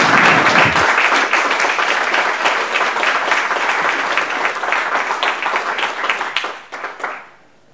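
Audience applauding: a dense patter of many hands clapping that thins and dies away about seven seconds in.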